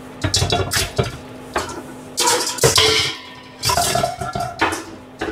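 Kitchen utensils clattering and scraping against a frying pan and plate as sautéed food is served out. The clatter comes in several short bursts, and one brings a brief ringing tone.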